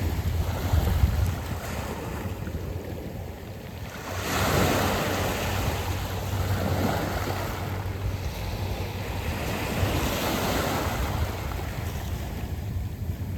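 Sea waves washing in over a beach of smooth round pebbles, a wash surging up about four seconds in and again around ten seconds. Wind buffets the microphone, adding a low rumble.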